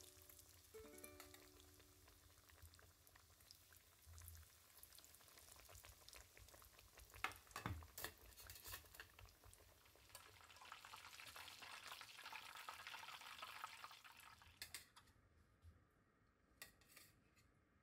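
Breaded pork mille-feuille cutlet deep-frying in hot oil in a small pan: a soft, steady sizzling hiss with crackles. It is strongest about ten to fourteen seconds in, then dies away after about fifteen seconds, leaving a few light clicks.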